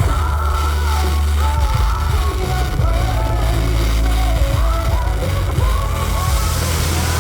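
Music with a singing voice over heavy, steady bass, the soundtrack of a fireworks show.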